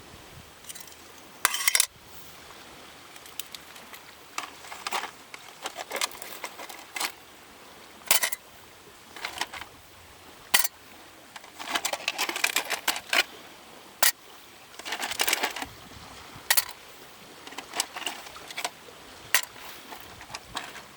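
Irregular sharp clicks, taps and knocks of small hard objects, some coming in quick clusters, over a faint steady background.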